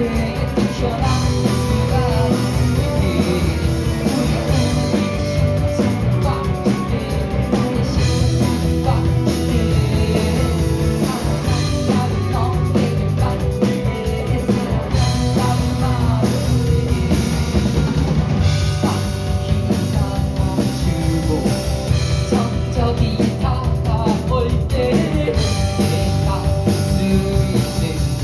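Rock band playing live, a drum kit driving a dense instrumental passage with sustained and sliding pitched instrument lines.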